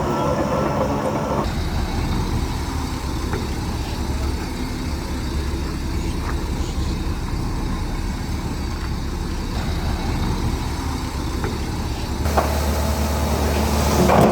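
Heavy diesel engine of earthmoving machinery running steadily, with occasional knocks. The sound changes abruptly about a second and a half in, and grows louder near the end with a clatter.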